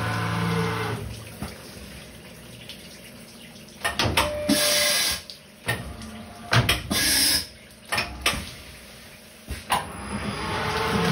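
CNC milling machine: its steady running tone dies away about a second in, then a quieter stretch broken by short loud hissing bursts and sharp clicks, and the machine's steady tone returns near the end.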